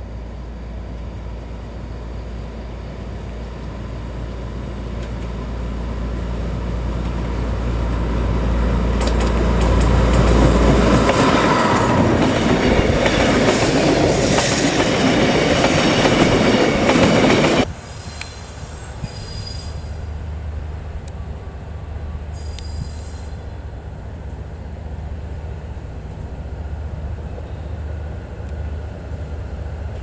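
D11H diesel locomotive's engine running as it approaches, growing steadily louder, then the loud clatter of freight wagons rolling past close by, with high wheel squeal. About two-thirds of the way in this cuts off suddenly, and a quieter, steady low rumble of another diesel locomotive follows.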